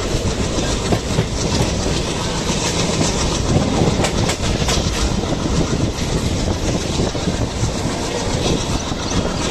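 Moving passenger train: a steady running rumble with wheels clacking over the rail joints.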